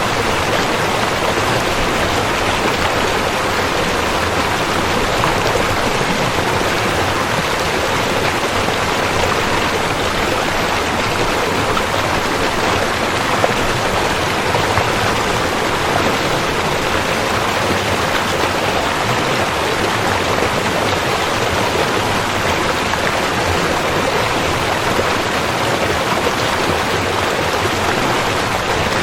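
River water rushing and splashing in a steady, even flow.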